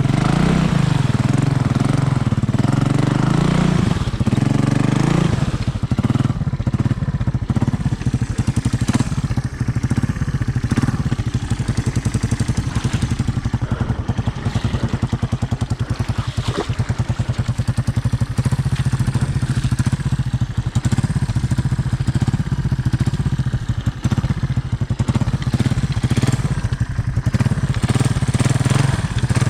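Honda ATC 200M three-wheeler's single-cylinder four-stroke engine running under way. Its pitch rises and falls over the first few seconds, then holds fairly steady.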